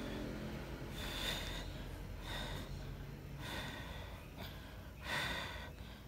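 Baby monkey breathing in its sleep: short breathy snorts, about five of them, one every second or so.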